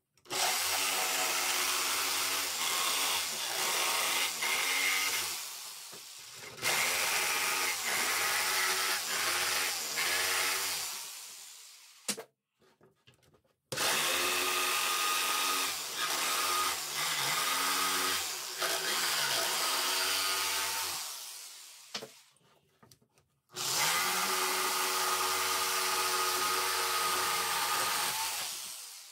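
Corded jigsaw cutting through a thick wooden board along a curve, in four runs of several seconds each; each run starts at once and fades out as the motor winds down.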